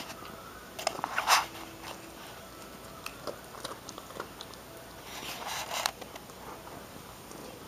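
A dog crunching and chewing bits of bone. There is a sharp spell of crunching about a second in, scattered small clicks, and another spell of chewing around five seconds in.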